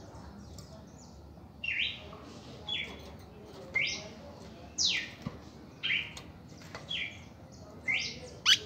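Red-crested cardinal singing: a string of short, clear whistled notes, about one a second, some sweeping up and some sweeping down, starting under two seconds in. The loudest, sharpest note comes near the end.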